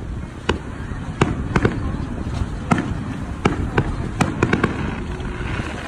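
Aerial fireworks going off: about ten sharp bangs at irregular intervals, some bunched close together, over a low rumbling background.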